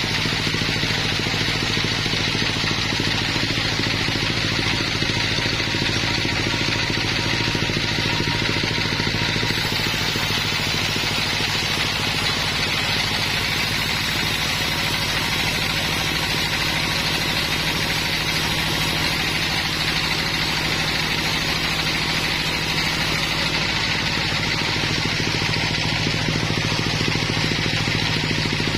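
Sawmill machinery running steadily, a constant engine-like hum with a hiss over it that does not change.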